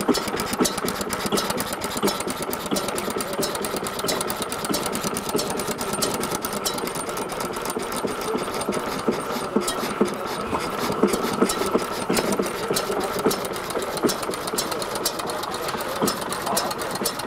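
Small 0.5 hp Reform stationary gas engine, early-1900s first type, running steadily with a fast, even clatter of clicks.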